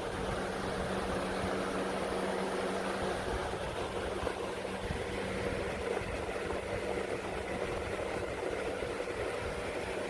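Hurricane 20-inch box fan running steadily: an even rush of air over a steady motor hum.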